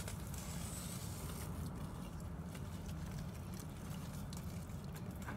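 Wet clay slurry squishing and scraping faintly as hands press it through a mesh strainer, with a few small clicks, over a steady low rumble.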